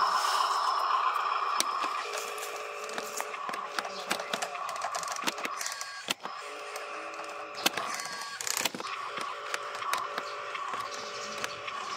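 Small electric motors and gears of a radio-controlled dump truck whining, louder in the first two seconds and then switching on and off. Sharp clicks and crunches are scattered through it.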